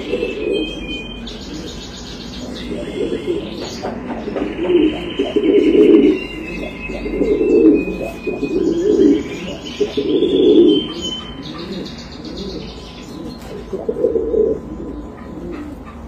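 Buchón pouter pigeons cooing, a series of loud low coos in bursts about every second or two, with high chirping from other birds in the background.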